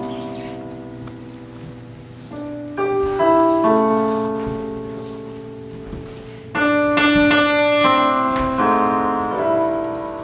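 Slow piano music: single notes and chords struck in small groups, each left to ring and die away. Fresh groups of chords come in about two and a half seconds in and again about six and a half seconds in.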